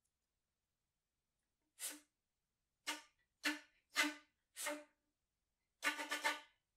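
Flute played with short, accented attacks of syllables such as "la" and "ka" voiced into the instrument over an airy tone of no set pitch, a contemporary flute technique. Five separate strokes from about two seconds in, then a quick run of three or four near the end.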